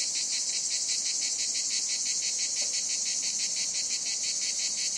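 Cicada song: a steady, high-pitched buzzing drone with a fast, even pulsing.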